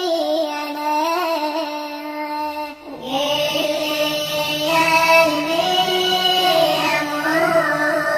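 Singing sped up and pitch-raised into a high, childlike 'chipmunk' voice: long held notes with wavering ornaments, broken by a short pause about three seconds in.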